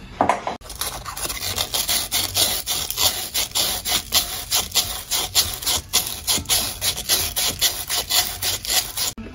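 Abrasive sand cloth being drawn quickly back and forth around a corroded copper pipe end, an even scraping at about three to four strokes a second. The green corrosion is being cleaned off to bare copper so the pipe can be soldered. The scraping starts about half a second in and stops suddenly just before the end.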